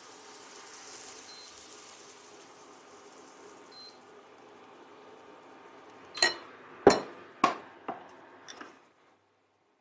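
A faint steady hiss, then five sharp clinks and knocks of kitchen utensils against cookware, each with a short ring, the second the loudest. The sound cuts off suddenly just before the end.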